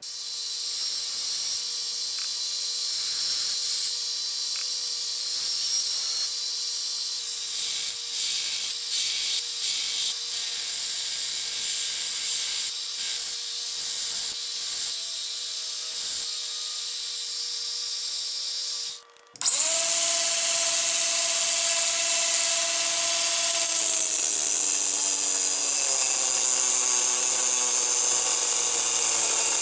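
Small electric power tool running steadily in two stretches. After a short break about 19 seconds in, it runs louder, and its pitch sinks gradually from about 24 seconds on.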